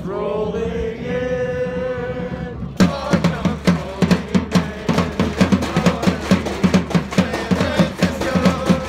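Football supporters singing a chant together, then a drum comes in about three seconds in, beating a fast, steady rhythm under the crowd.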